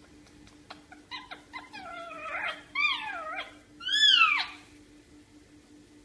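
Indian ringneck parakeet calling: a few light clicks, then a run of short squeaky calls and three longer calls that rise and fall in pitch, the last and loudest about four seconds in.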